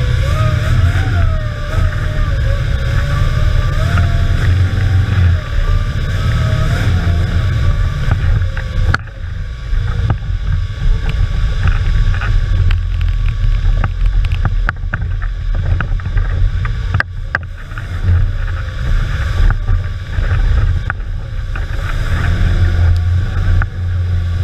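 Off-road trial car's engine running hard, heard from inside the cabin, its pitch rising and falling with the throttle. Through the middle there are repeated sharp knocks and rattles as the car bounces over rough ground.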